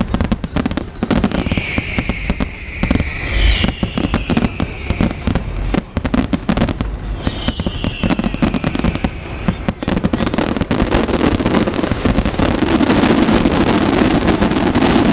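Fireworks display: a rapid run of crackling bursts and bangs from the shells, with a few high falling whistles. The barrage grows denser and louder in the last few seconds.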